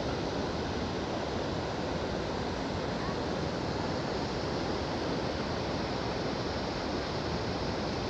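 Steady rushing of a wide waterfall in high flow: a river pouring over a long line of rock ledges and churning across the rock bed below.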